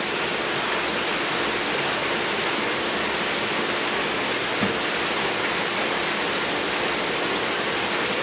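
Steady rushing water noise of an aquarium's water flow, with a faint steady hum under it.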